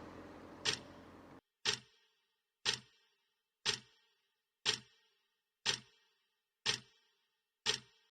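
Clock ticking steadily, one sharp tick each second, each with a short ring. A fading background sound underneath cuts off suddenly about a second and a half in, leaving only the ticks.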